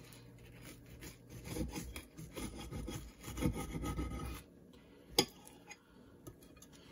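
Table knife sawing through a crispy, butter-toasted quesadilla tortilla: a run of rasping, crunching strokes that stops about four and a half seconds in. A single sharp click follows about a second later.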